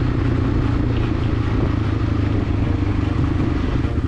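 Crossfire motorcycle engine running steadily under way on a dusty dirt road, a constant low engine hum over road and wind noise.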